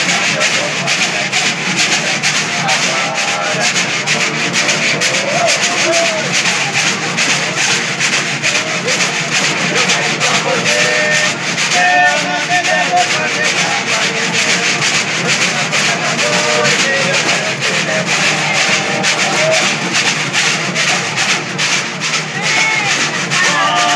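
Cururu from Mato Grosso: a ganzá (notched bamboo scraper) rasped steadily in rhythm over strummed violas de cocho, with men's voices singing a toada.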